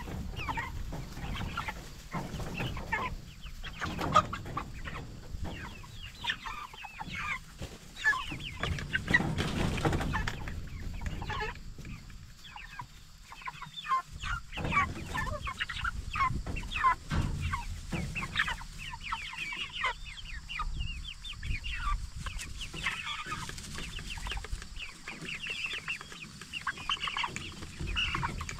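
A flock of Cornish Cross broiler chickens clucking, with many short calls overlapping all the way through. A sharp knock comes about four seconds in.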